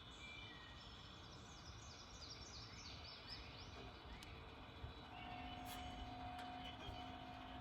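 A bird sings a quick run of descending notes over a low outdoor rumble. From about five seconds in, a steady low hum joins.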